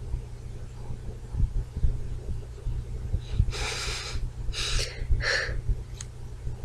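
Handling noise while lip liner is applied and the products are picked up: low, irregular thumps and rumble, three short rustles a little past the middle, and a small click near the end.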